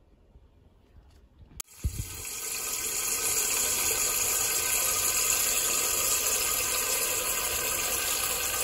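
Tap water running into a stainless steel pot, a steady gushing stream that starts abruptly about a second and a half in after near silence.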